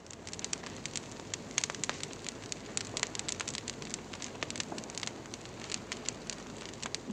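Wood fire crackling: a steady rush dotted with frequent, irregular sharp pops.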